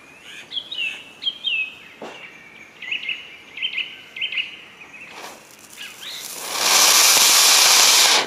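Cone-shaped flower-pot fountain firework erupting about six seconds in, spraying sparks with a loud, steady hiss that cuts off suddenly near the end. Before it, birds chirp repeatedly.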